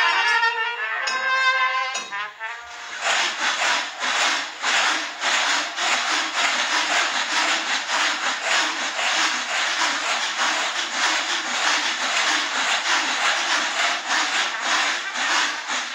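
A brass band plays briefly, then breaks off about two and a half seconds in. A loud, dense, unpitched rhythmic noise takes over, pulsing several times a second, like rattling or shaking.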